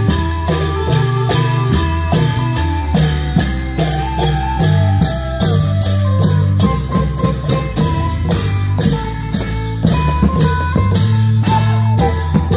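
Thai Isan klong yao (long-drum) band playing: a steady, driving beat of long drums and percussion with an amplified plucked-string melody and bass over it.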